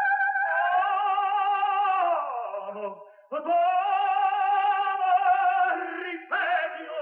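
Music: a melody of long held notes with a wide, wavering vibrato, dropping away briefly about three seconds in and then resuming.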